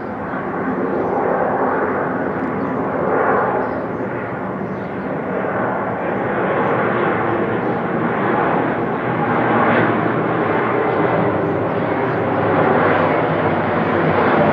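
Twin-engine Boeing 777 airliner on landing approach with its gear down, passing low overhead: the jet engine noise grows steadily louder as it comes nearer.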